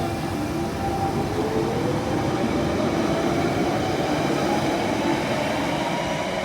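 Electric train's traction motors whining, the pitch rising steadily as the train accelerates, over the rumble of the train.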